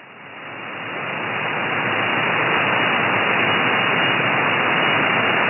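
Band noise from a shortwave SDR receiver (SDRplay RSPduo fed by a Mini Whip active antenna) in upper-sideband mode on the 17-metre amateur band between transmissions: a steady static hiss that swells up over the first couple of seconds after the station stops talking.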